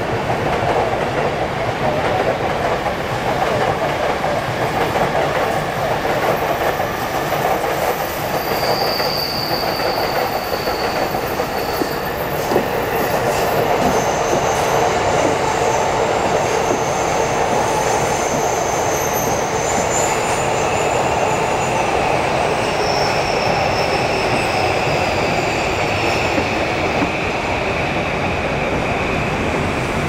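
JR East E235 series electric train running past on the track, with a continuous rumble of wheels on rail. Thin, high wheel squeals come and go several times.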